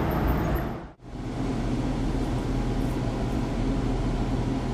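Steady running hum inside a B2-class tram, with a low drone under an even noise; the sound drops out briefly about a second in, then carries on unchanged.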